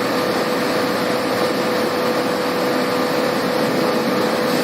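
Refrigerator door gasket production-line machinery running steadily: a constant mechanical hum with a steady mid-pitched tone.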